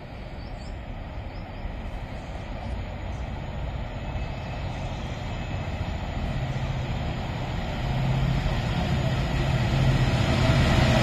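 DB Cargo Class 66 diesel locomotive approaching with a freight train of hopper wagons, its engine drone growing steadily louder as it nears.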